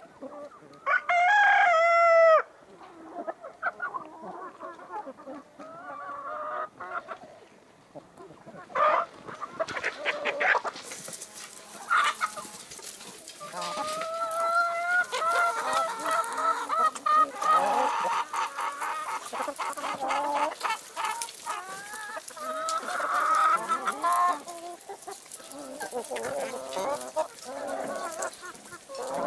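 A flock of chickens, Brahmas among them, clucking and calling. A rooster crows loudly once about a second in. Shorter clucks and calls overlap through the rest.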